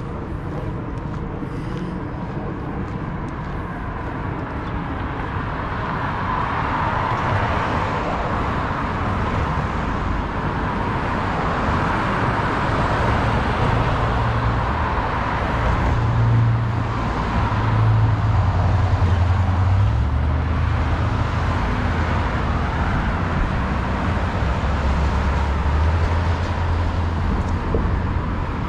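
City street traffic: cars passing one after another, their tyre and engine noise swelling and fading, over a low rumble that grows stronger in the second half.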